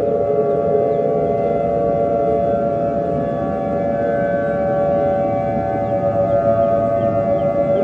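Civil defense siren sounding the attack warning: a long held tone of several pitches at once, dipping slightly in pitch near the start, over a steady low rumble.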